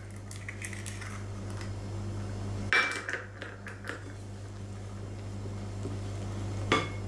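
Wooden spoon stirring a freshly cracked egg into a sticky risen yeast sponge in a glass bowl, with scattered clinks and knocks of the spoon against the glass. A sharper knock comes about three seconds in and another near the end, over a steady low hum.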